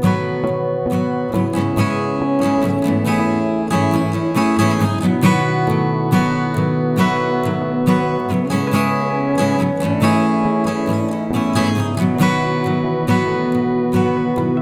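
Background music: acoustic guitar strumming with steady chords.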